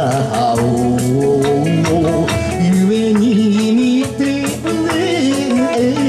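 Live Kawachi ondo music: a band with guitar and keyboard plays a melody over a regular percussive beat, with a male singer's voice holding and bending long notes.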